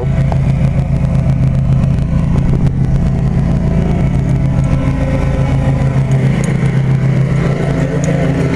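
A machine running with a steady low hum, with a light hiss over it.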